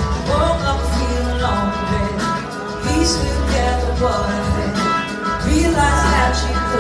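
Live blues-rock band playing: a woman's lead vocal over electric guitars, bass and drums.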